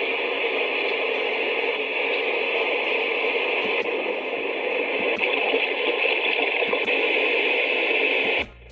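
Sharp projection alarm clock playing its white noise sleep sound through its small built-in speaker: a steady hiss that cuts off suddenly near the end.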